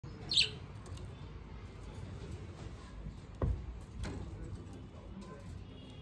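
A budgerigar gives one short, high chirp that falls in pitch, right at the start. About halfway through come two knocks, half a second apart, over a low steady hum.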